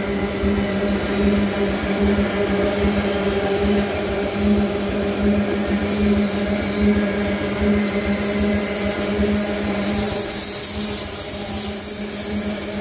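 Loaded iron-ore gondola wagons rolling past on the rails: a steady rumble of wheels with a low hum, and a high hiss that comes in about eight seconds in and again from about ten seconds.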